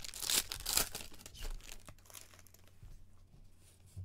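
Plastic wrapper of a Supergirl trading-card pack crinkling and tearing as it is pulled open by hand, loudest in the first two seconds, then fading to faint rustling of the cards, with a light tap near the end.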